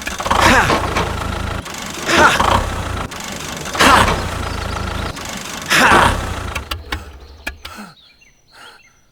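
Tractor engine running, surging in four revs about two seconds apart, then dying away to near silence near the end.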